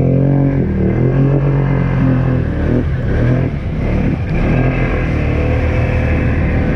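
ATV engine running under throttle, its pitch rising and falling repeatedly, then holding steadier near the end.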